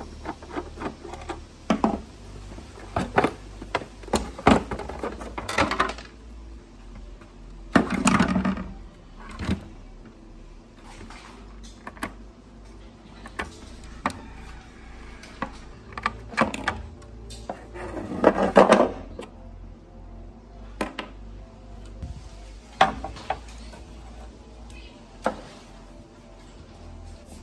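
Hard plastic casing of an old belt vibrator being handled and taken apart on a table: irregular knocks and clicks, with two longer, louder scrapes.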